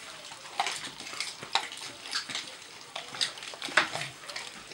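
Greyhound puppies eating raw meat: irregular wet chewing, smacking and licking sounds with small clicks.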